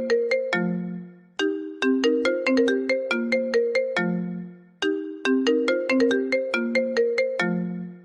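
iPhone ringtone playing: a short melody of quick, ringing notes that ends on a longer low note, repeated about every three and a half seconds.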